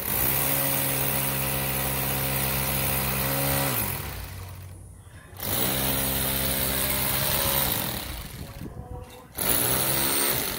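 Corded handheld electric power tool working into a plastered wall, its motor running at a steady pitch in three runs: a long one that winds down about four seconds in, a second after a short pause that winds down near eight seconds, and a brief third run near the end.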